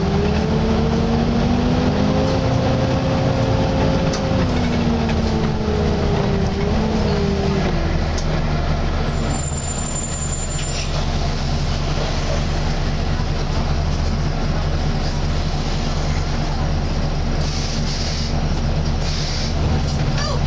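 Volvo B9TL double-decker bus's engine cooling fan whining like a vacuum cleaner, rising in pitch over the first couple of seconds, holding, then falling away and fading about eight seconds in. Under it runs the steady drone of the engine and road noise inside the moving bus.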